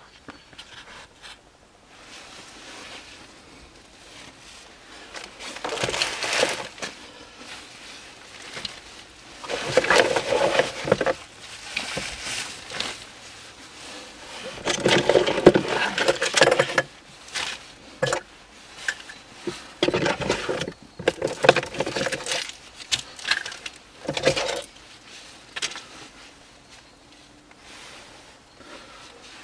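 Plastic bags crinkling and rustling, with scrapes and knocks of loose items, in several bursts of a second or two as a car's glove box is emptied by hand.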